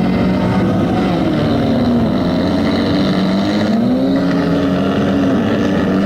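Engines of banger racing cars in a destruction derby, several revving at once with their pitch repeatedly rising and falling.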